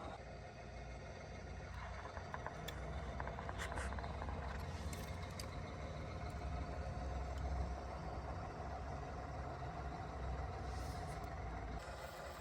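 Radio-controlled model construction vehicle running: a steady low engine-like rumble with a constant whine, and a few light clicks in the first few seconds.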